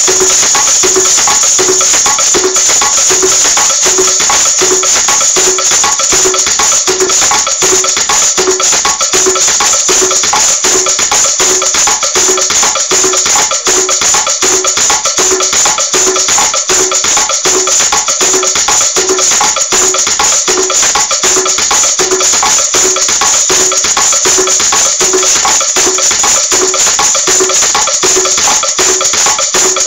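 Maracas shaken in a fast, unbroken rhythm: a dense, bright rattle. Under it runs a regular pitched beat of a little under two pulses a second.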